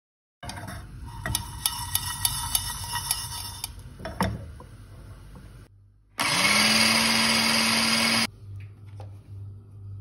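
Electric spice grinder spinning up and running for about two seconds, grinding roasted whole spices to powder, then cutting off. Before it come several seconds of clicking and rattling.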